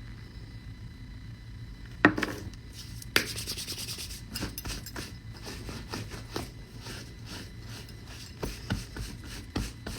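Close rubbing and scraping handling noise, with a sharp knock about two seconds in and another about three seconds in, then irregular rustling strokes.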